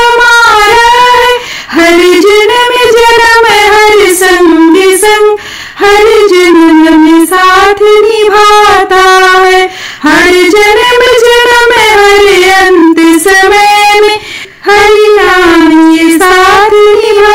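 A woman singing a Hindi devotional bhajan in praise of Hari's name, in short melodic phrases with brief pauses for breath between them.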